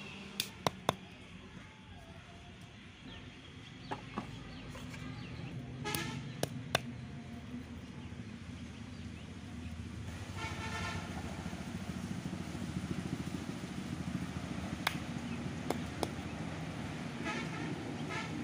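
A stone knocking against a brick as small shells are crushed, in short groups of sharp knocks, over a steady low hum. A brief horn-like toot sounds twice, once near the middle and again near the end.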